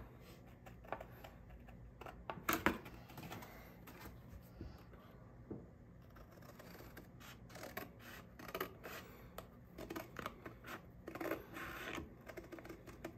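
Scissors cutting thin cereal-box cardboard: a run of short, irregular snips and crunches as the blades close through the board.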